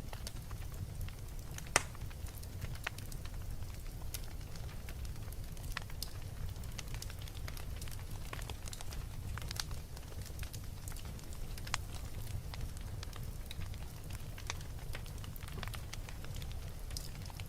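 Wood fire burning in a fireplace: a steady low rumble with scattered crackles and pops, one sharp pop standing out about two seconds in.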